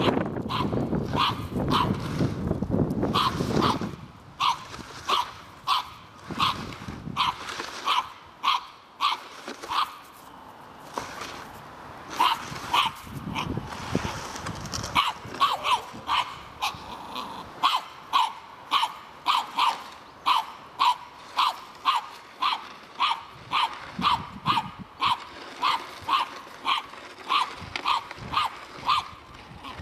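Norfolk terrier barking at a stranger lying on the ground ahead of it, a long run of sharp, high barks at about two a second. A low rumbling noise covers the first few seconds.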